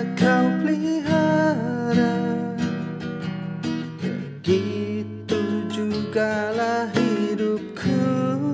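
Singing of an Indonesian Christian worship song over strummed acoustic guitar.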